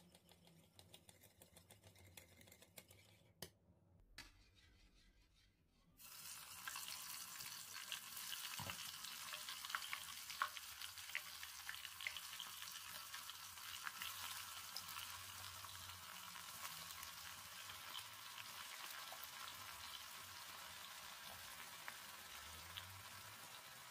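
A wire whisk stirs batter in a bowl, giving faint soft clicks. About six seconds in, cauliflower florets deep-frying in plenty of hot oil in a pot take over, a steady sizzle full of small crackles.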